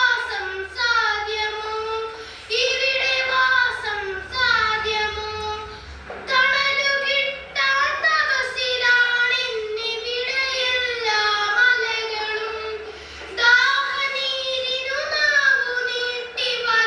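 A child's voice singing a song unaccompanied, in sustained phrases broken by short pauses.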